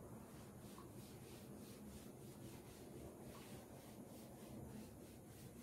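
Faint, repeated strokes of a cloth duster rubbing across a chalkboard as it is wiped clean, over a low steady hum.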